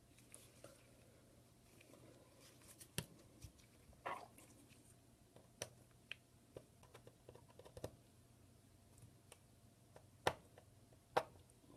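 Scattered light clicks and taps, about a dozen spread irregularly, from small tools and iPhone 6 parts being handled on a workbench.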